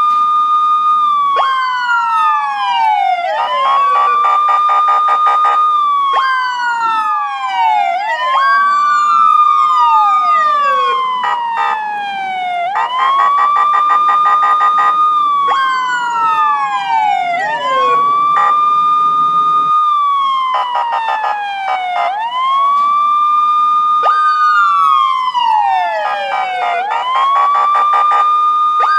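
Police car siren wailing: each cycle rises quickly, holds a high tone, then falls slowly, repeating every three to four seconds, with a second wail overlapping out of step.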